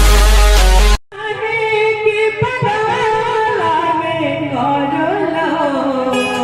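Loud electronic music with heavy bass cuts off abruptly about a second in, and a slow, ornamented sung melody follows over a steady low drone.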